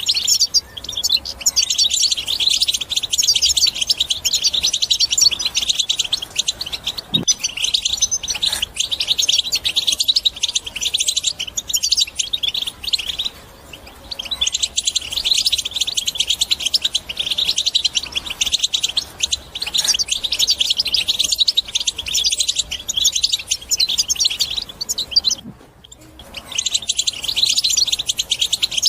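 European goldfinch singing a fast, continuous twittering song, breaking off briefly twice, about halfway and near the end.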